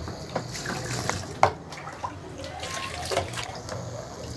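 Tap water running and splashing as diced raw potatoes are rinsed in a bowl in a stainless steel sink. A few light knocks come from the bowl being handled, with a sharp one about a second and a half in.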